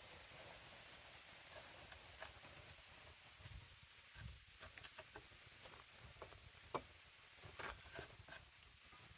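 Near silence: room tone with a few faint scattered ticks and taps, the clearest about two-thirds of the way through.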